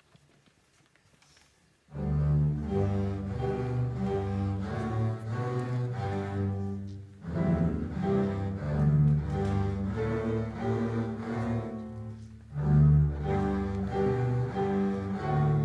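A fourth-grade ensemble of cellos and basses, bowed, starts playing a low tune about two seconds in after near silence, with two short breaks between phrases.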